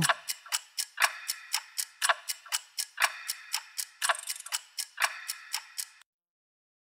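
Clock ticking rapidly and evenly, several ticks a second with a stronger tick about once a second, stopping abruptly about six seconds in.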